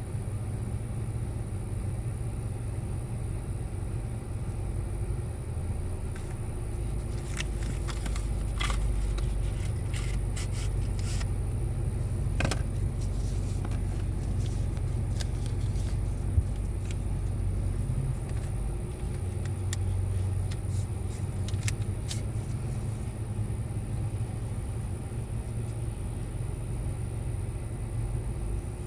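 Steady low rumble inside a car during heavy rain, with scattered light taps and clicks from about seven to twenty-two seconds in.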